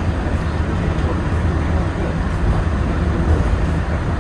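Walt Disney World monorail running at speed, heard inside the cabin: a steady low rumble of its rubber tyres on the concrete beam and its drive, with no change through the stretch.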